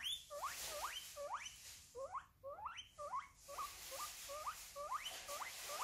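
Guinea pig wheeking: a rapid run of short rising whistle-squeaks, two to three a second, each shorter and quicker toward the end, a call for attention.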